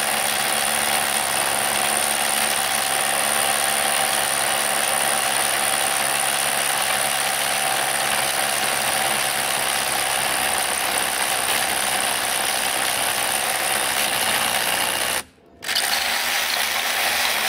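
Bosch GBH 36V-Li Compact cordless SDS rotary hammer drilling a large hole into a masonry block, running steadily under load. It stops briefly near the end and starts again.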